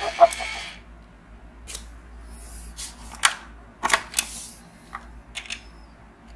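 Hard plastic Olaf toy being handled by hand: a scatter of sharp plastic clicks and knocks with brief rustles as it is lifted off its clear plastic stand and its body and head are gripped. The toy's recorded singing trails off in the first second.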